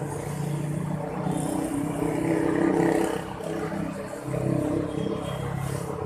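Street traffic: motor vehicles running past with engine hum, swelling about two to three seconds in.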